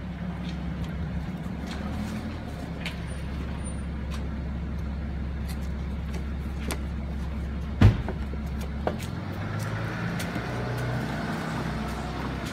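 Road vehicle engine idling with a steady low rumble. A single sharp knock comes just under eight seconds in, and the low rumble drops away about a second later.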